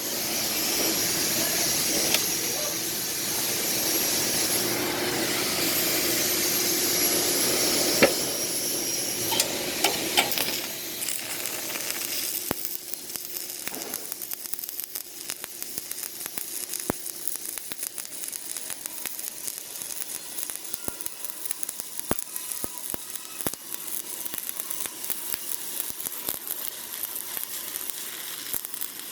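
Stick-welding arc burning a 1/8-inch 7018 rod, a steady frying sizzle with crackles. It is louder for about the first ten seconds, then runs on quieter with sharper, sputtering pops.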